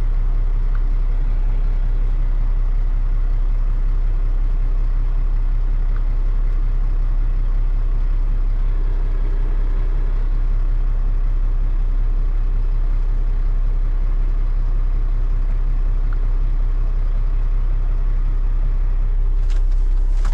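Semi-truck diesel engine idling steadily, heard from inside the cab as a low, even rumble, with a few light clicks near the end.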